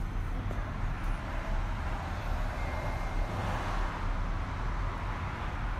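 Outdoor background noise: a steady low rumble, with a rushing sound that swells and fades about three and a half seconds in.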